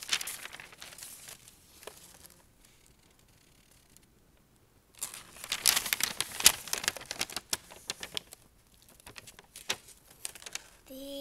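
Sheets of paper rustling and crinkling as the pages of a handmade paper book are handled and turned. The rustling comes in bouts, with a quiet stretch early on and the loudest handling about halfway through.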